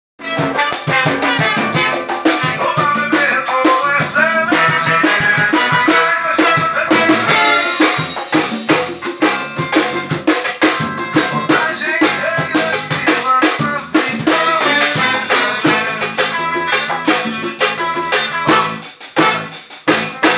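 A live band rehearsing: a busy percussion groove of drums and hand drums under saxophone, trombone, electric guitar and keyboard.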